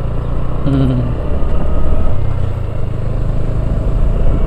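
Motorcycle engine running at low road speed while riding, heard from on the bike, with a steady low rumble; a short pitched sound comes about a second in.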